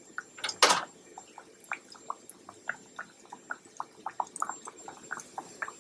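Hot oil sizzling and crackling around flour-dredged pork chops shallow-frying in a pan, with a steady scatter of sharp pops and one louder burst of crackling about half a second in.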